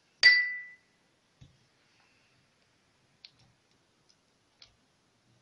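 A spoon clinks once against a hard dish with a brief ringing tone, then taps faintly a few times as it presses quince paste into a silicone mould.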